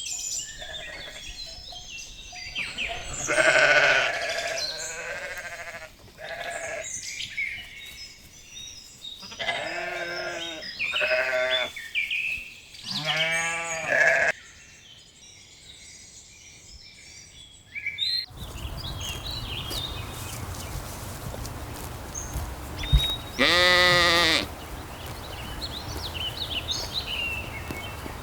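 Sheep bleating, about five separate wavering calls of roughly a second each, the loudest near the start and one more late on. Birds chirp in the background.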